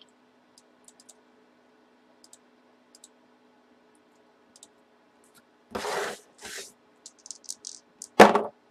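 Cardboard box being handled on a tabletop: a brushing scrape about six seconds in, a few light clicks, then a short sharp knock near the end. Scattered faint clicks and a low steady hum run underneath.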